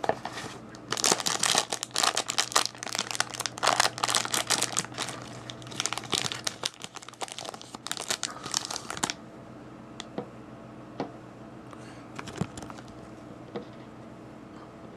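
Packaging of a sealed vinyl-toy blind box being torn open and crinkled by hand, a busy stretch of crackling and ripping lasting about eight seconds. After that only a few light, separate taps are heard.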